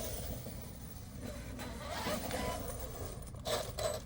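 Radio-controlled car on a 4S battery running over rough ground, its metal gears and tyres making scattered scrapes and knocks, with a few louder bursts near the end.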